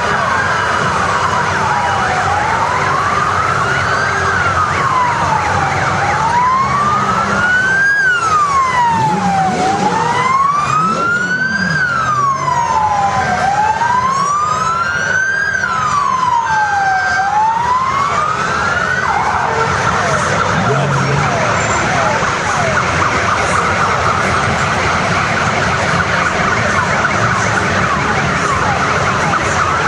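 A siren wailing, sliding slowly up and down about every four seconds, over the steady noise of a procession of motorcycles passing. The wail stops a bit past halfway, followed by a few short falling siren sweeps.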